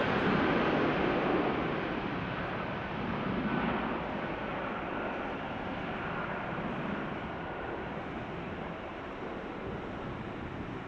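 Jet airliner engines, a broad rumble fading steadily as the aircraft moves away.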